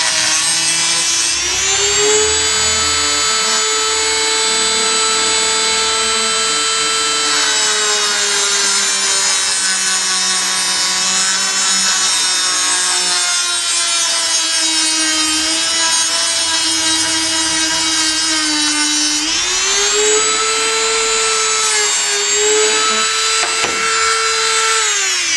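High-speed rotary tool cutting and trimming an RC truck bumper mount. Its whine sags in pitch as it bites into the part and climbs again as it frees up, and it spins down near the end.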